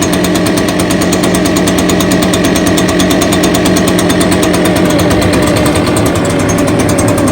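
Brand-new Echo PB580T backpack leaf blower's two-stroke engine idling steadily on its first run, warming up before being revved; a really nice idle.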